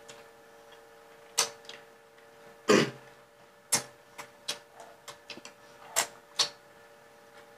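Eating sounds from a stuffed crab: a spoon and fingers working at the crab shell and mouths chewing, heard as a string of short, sharp clicks and smacks at uneven intervals, the loudest about a third of the way in, over a faint steady hum.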